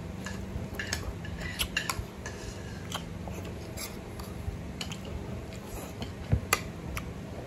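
Metal spoon scraping and clicking against a ceramic plate as food is scooped, in scattered single clicks with the sharpest near the end, over a steady low hum.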